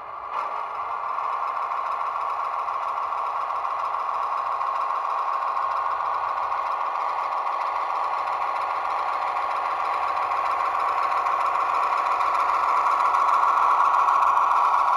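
Diesel railcar engine sound from an ESU LokSound 5 sound decoder, played through the small speaker of a Jouef HO-scale SNCF X4700 railcar model as it gets under way. The engine note runs steadily and grows gradually louder, with a small click just after the start.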